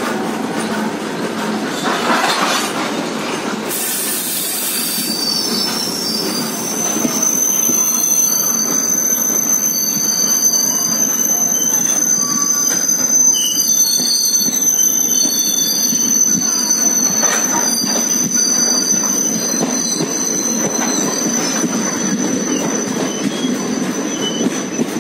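Steel wheels of a moving passenger train squealing against the rails over the steady running rumble of the coaches. The high, steady squeal sets in about five seconds in and holds on.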